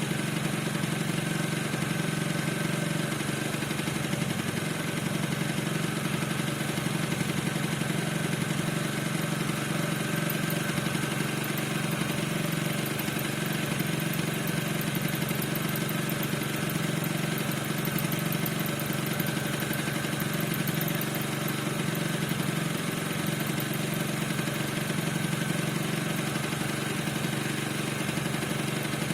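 Piaggio NRG 50 scooter's 50 cc two-stroke engine idling steadily, with a faint steady high tone over it; the owner says the engine squeaks and does not know why.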